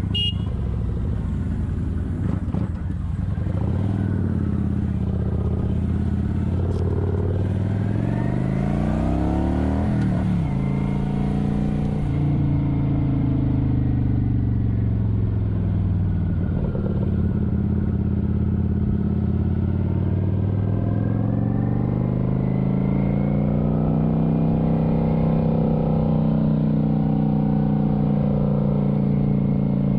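Kawasaki Vulcan 900's V-twin engine running on the road. The revs climb and drop back sharply with a gear change about ten seconds in. They then hold steady, sag, and rise again to a steady cruise.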